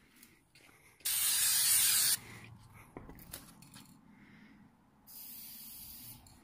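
Aerosol spray-paint can spraying in two bursts: a loud one about a second long, then a fainter, thinner one of about a second and a half near the end.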